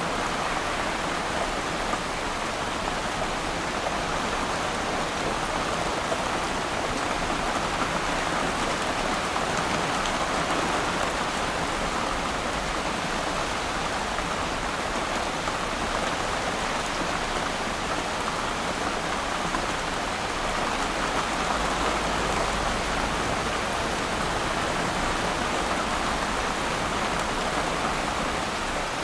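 Steady rain falling on water, a dense even patter of drops. A low rumble of distant thunder swells for a few seconds about two-thirds of the way through.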